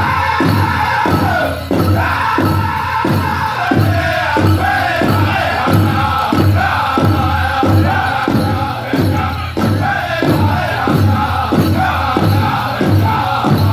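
Powwow drum group singing a chicken dance song in high voices over a big drum struck in unison, a steady beat of about two strokes a second.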